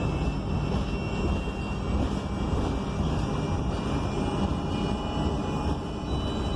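Interior ride noise of a 2021 ENC Axess bus under way: its Cummins Westport L9N natural-gas engine running steadily, blended with road and body rumble.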